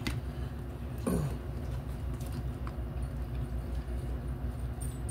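Eating sounds: quiet chewing and light clicks of plastic forks, cups and mussel shells over a steady low hum, with a short falling voiced murmur about a second in.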